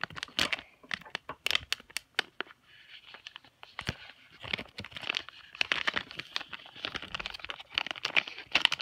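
Plastic blind bag crinkling and crackling as hands handle it and tear at it, a rapid run of sharp crackles that grows denser a few seconds in.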